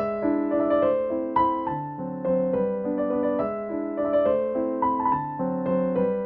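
Background music: a keyboard playing held chords with a melody over them.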